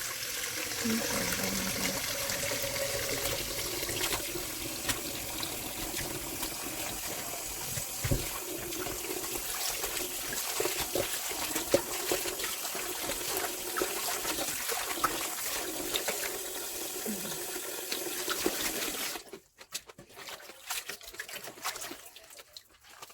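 Kitchen tap running into a sink with water splashing steadily. It is shut off about 19 seconds in, leaving only a few faint clicks.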